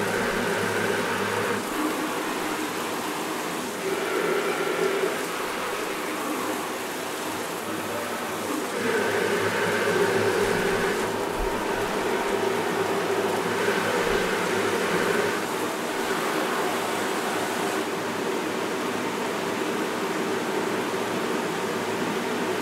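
Water spraying from a showerhead, several recordings layered into a steady rushing hiss. Faint held tones come in and out several times, and the rush swells a little about four seconds in and again about nine seconds in.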